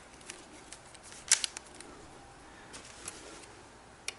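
Handling clicks and knocks from piano-stand parts (a wooden side panel, a plastic bracket and screws) being fitted together by hand: one sharp click about a second in, a few lighter taps right after, then scattered faint ticks.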